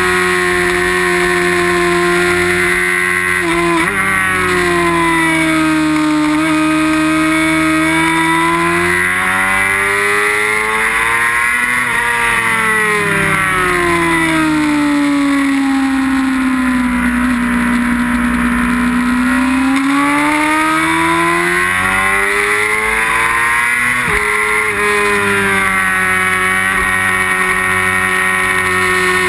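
Race sport bike's inline-four engine at high revs over wind noise, its pitch sinking and climbing with speed through corners, with sudden gear-change steps at about 4, 12 and 24 seconds in.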